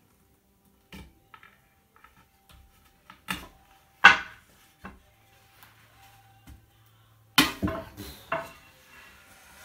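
Wooden slats knocking and clattering against one another as they are handled and moved. There are a few separate knocks, the loudest about four seconds in, then a quick run of knocks near the end.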